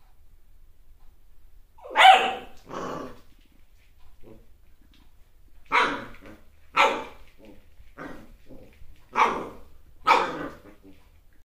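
Corgi puppy barking: six short barks in three pairs, each pair a few seconds apart.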